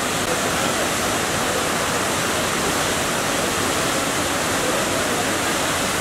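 Tomara Waterfall, water pouring from many outlets down a tiered rock face at high flow: a steady, loud rush of falling water.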